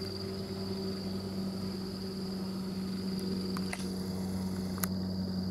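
An insect trilling one steady high note, over a steady low hum. A few sharp clicks come near the end.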